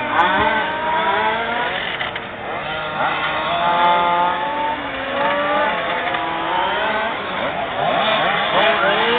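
Several 1/5-scale FG gas-powered RC race cars with two-stroke engines, their overlapping engine notes repeatedly revving up and falling back as they race around the track.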